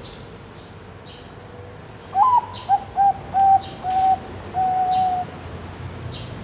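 Zebra dove (Bangkok perkutut) cooing one song phrase about two seconds in: a rising first note, a run of short clipped notes, then a longer held final note. Faint high chirps from other small birds repeat through the background.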